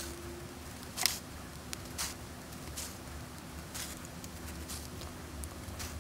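Faint handling sounds of hand-sewing a small metal belt eyelet onto black elastic: soft swishes of thread pulled through and small ticks, the loudest swish about a second in.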